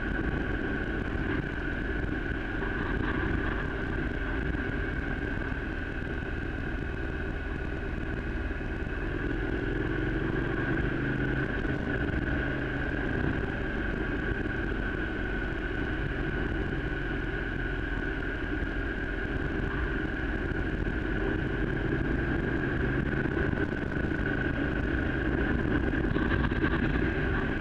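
A vehicle's engine and road noise running steadily during a descent of a mountain road, with a constant high whine above it.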